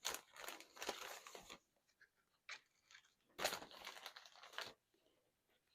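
Faint rustling and crinkling of paper packaging being handled, in two short spells.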